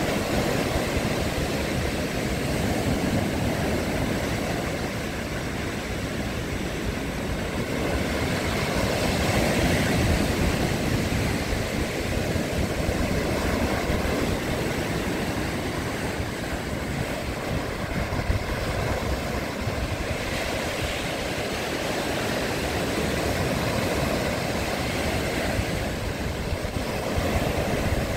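Surf breaking and washing up a stony beach: a steady roar of waves that swells and eases every several seconds.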